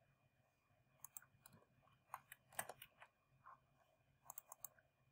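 Near silence with faint, irregular clicks at a computer, in small clusters, the loudest near the middle. A faint steady hum lies under them.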